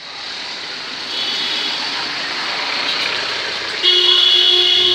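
Street traffic noise building up, then a vehicle horn sounding one long steady honk starting about four seconds in.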